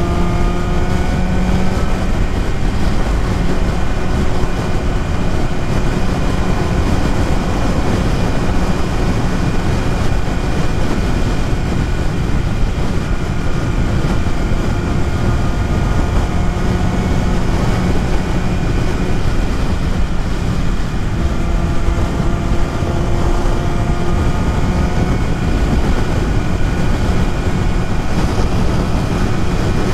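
BMW S1000RR's inline-four engine running at a steady highway cruise, under heavy wind and road noise.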